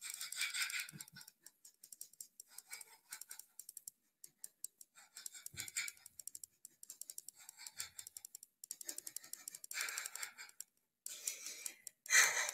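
A woman's heavy, irregular breathing, hissing breaths a few seconds apart while she shakes her whole body hard, with the loudest breath near the end. Faint clicks and rattles from the shaking run underneath.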